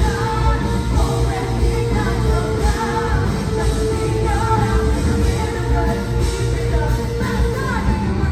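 Live hard rock band playing loudly through a venue PA, heard from within the audience. Heavy bass and drums sit under distorted guitars, with a wavering lead melody above them.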